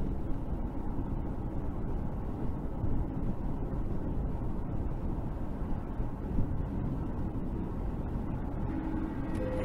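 Steady road and engine noise of a car cruising on a highway, heard from inside the cabin through a dash cam's microphone. Near the end a steady tone comes in.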